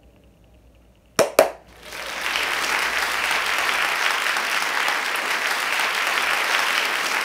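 Applause from a crowd, rising in about two seconds in and holding steady, after two sharp clicks about a second in.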